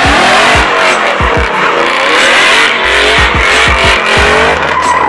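Ford Transit van fitted with a BMW M60B40 4.0-litre V8, revving hard with its pitch rising and falling as the rear tyres spin and screech on tarmac.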